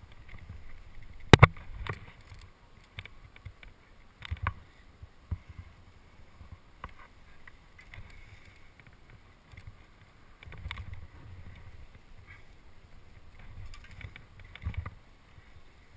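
A climber's movement on rock: scuffs and sharp clicks of hands, shoes and hanging gear, the loudest click about a second and a half in, over a low rumble of wind on the microphone.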